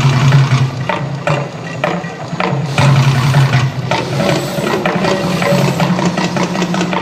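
Mirage volcano show's sound: a loud, steady deep rumble with irregular drum-like strikes, several close together in the first four seconds.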